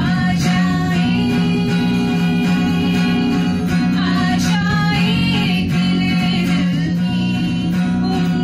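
Acoustic guitar strummed steadily under voices singing a melody into microphones, women's voices among them.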